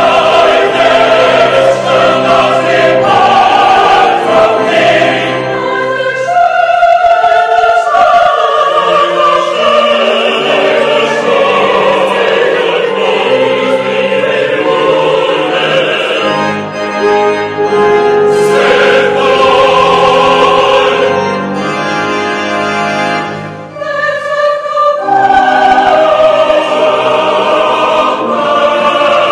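Choir singing a synagogue anthem with pipe organ accompaniment, in sustained chords that dip briefly before swelling back up.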